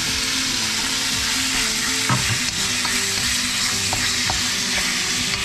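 Diced chicken and red curry paste sizzling loudly in a hot wok while a spatula stirs it, with a few sharp knocks of the spatula against the pan.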